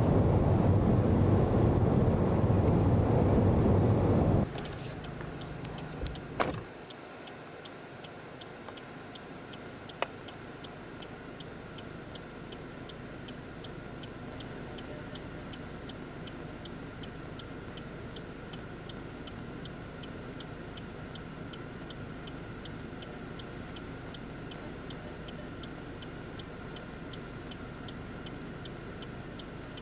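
Loud rushing wind and road noise in a car cuts off abruptly about four seconds in, followed by a few clicks. A car's indicator then ticks steadily, about two ticks a second, over a quiet cabin hum.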